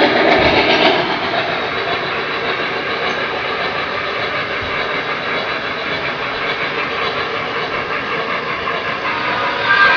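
O-gauge model freight cars (hopper cars) rolling past on the track: a steady clatter and rumble of metal wheels on the rails, louder for about the first second.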